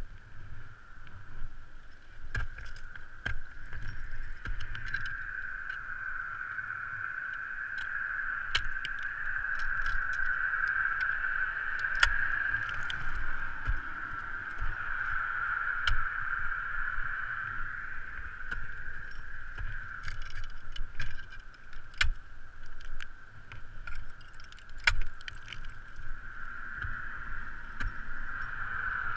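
Irregular sharp knocks and clinks of crampons and climbing hardware against water ice, every few seconds, over a steady hiss.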